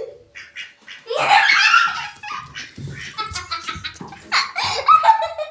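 Children laughing and giggling in bursts, loudest about a second in and again near the end.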